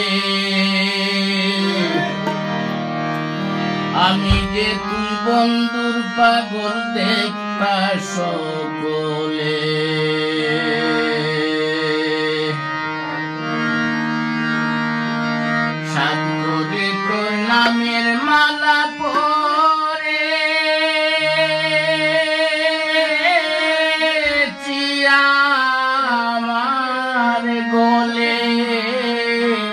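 Live Bengali folk music: a harmonium playing long held notes with tabla accompaniment, and a man singing in places.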